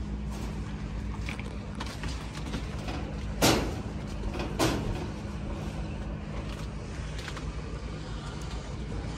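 Two sharp knocks about a second apart, over a steady low outdoor hum and rumble.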